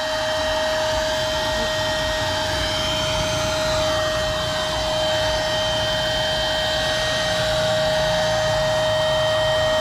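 Shark2S rechargeable electric inflation pump running steadily as it inflates an inflatable kayak's side chambers: a constant whine over a rush of air. It is filling toward its preset 2.2 psi, at which it should shut off.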